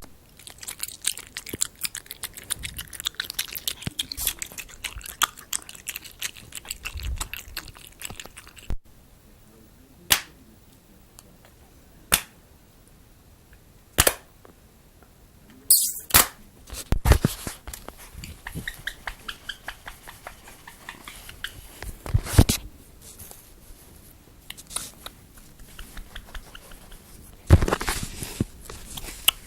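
Irregular crackling clicks, then a few single sharp clicks about two seconds apart, then dense crackling again with several loud snaps.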